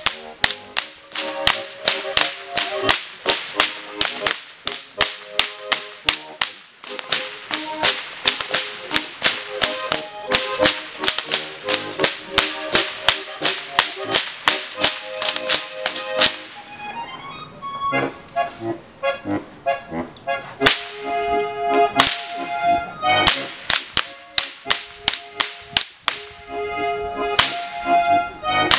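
Goaßlschnalzer whip crackers cracking Bavarian Goaßl whips together in a fast, even rhythm of sharp cracks, about four a second, over music. About two-thirds of the way through the cracks thin out and the music's held chords come forward.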